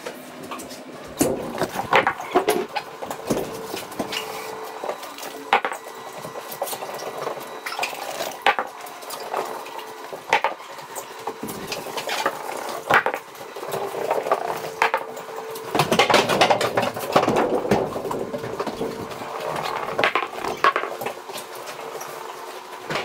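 Irregular knocks, clatter and scuffing as large tractor tyres are rolled and shifted across the trailer's floor, with a louder rumbling, scraping stretch about two-thirds of the way through.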